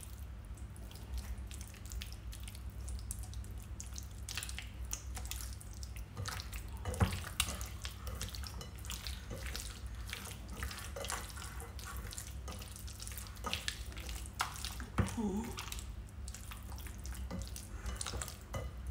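Hands squishing and kneading raw chicken pieces in a thick yogurt-and-spice marinade in a glass bowl: irregular wet squelches and clicks.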